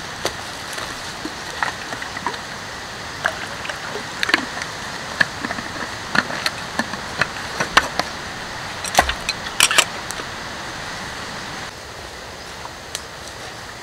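Wood campfire crackling: irregular sharp pops and snaps over a steady hiss, busiest in the middle.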